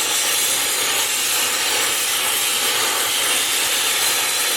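Gas burner hissing steadily, the open flame used to heat the rivets for hot riveting.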